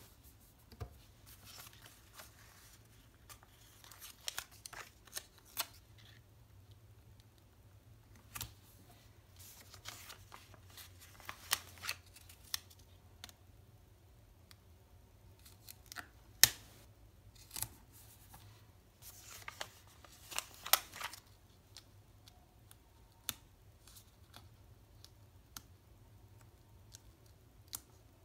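Planner stickers being peeled from their kit sheet and pressed down onto paper planner pages: scattered crisp clicks and short paper rustles, with a few louder snaps.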